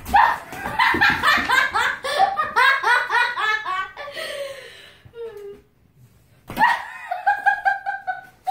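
A person laughing hard in a rapid string of high-pitched ha-ha bursts for about four seconds. A second, shorter run of laughter follows near the end.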